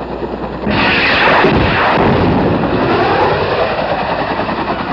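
Helicopter gunship passing low overhead, a loud rush starting about a second in whose pitch sweeps down and back up as it goes by, with a rapid rattle running through it.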